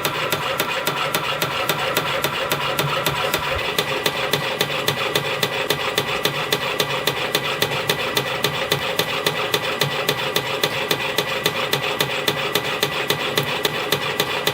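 CNC spring coiling machine (YHM CF-310) running steadily while coiling fine 0.4 mm wire into compression springs. It gives a fast, even clicking, about four to five clicks a second, over a continuous mechanical hum.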